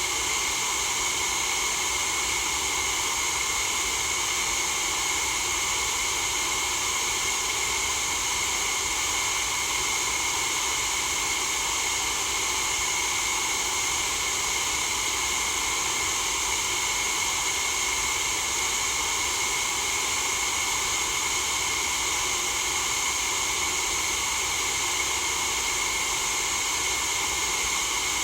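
Steady white noise for sleep: an even, unchanging hiss, brightest in the upper range.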